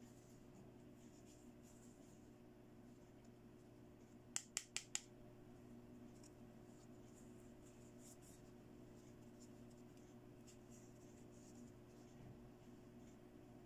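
Faint handling of a small plastic toy mirror, light rubbing over a low steady hum, with four quick sharp clicks about four and a half seconds in.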